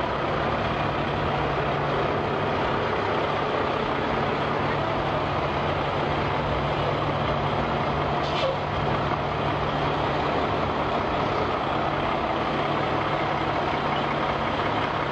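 Semi truck's diesel engine running at low speed as the rig slowly maneuvers: a steady low hum under a dense, even rushing noise.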